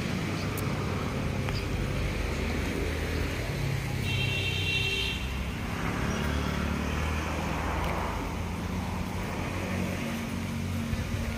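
Car engine and road noise, running steadily as the vehicle moves slowly. A brief high tone comes in about four seconds in.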